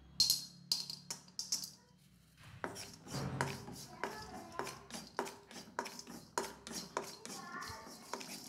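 Pieces of solid asafoetida dropped into a dry metal kadai with a few sharp clicks, then stirred with a wooden spatula that scrapes and knocks against the pan about two or three times a second as they roast.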